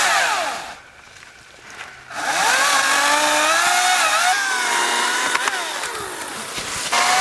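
Electric chainsaw running with a high whine. It stops for about a second and a half, then spins up again, its pitch wavering and sagging, and revs up once more near the end.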